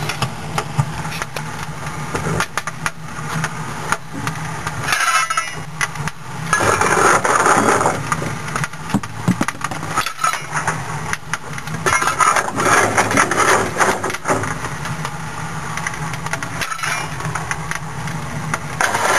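Fire burning in the open firebox of a 7¼-inch gauge live-steam locomotive while it is being lit, a rushing noise with many clicks and knocks from the fire being tended. A low hum fades about five seconds in.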